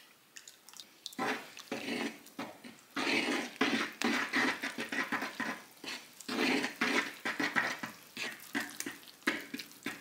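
Fork stirring flour, water and olive oil into a wet, sticky dough in a wooden bowl: a couple of light clicks, then from about a second in a steady run of irregular wet stirring and scraping strokes.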